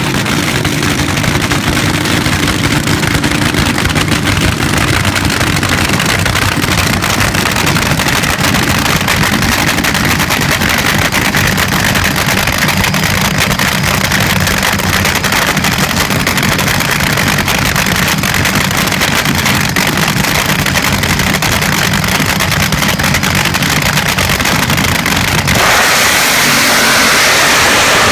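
Supercharged nitromethane-burning AA/Fuel Altered drag-race engines running steadily at idle. About 26 seconds in, they break into a sudden, much louder, rough full-throttle blast.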